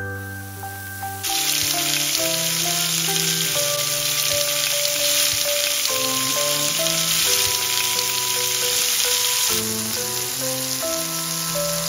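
Chicken pieces frying in hot oil in a nonstick pan: a loud, steady sizzle that starts abruptly about a second in and eases a little near the end, over background music.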